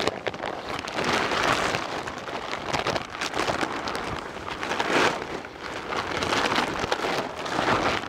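Plastic greenhouse cover rustling and crinkling as it is unfolded and handled, rising and falling in uneven swells.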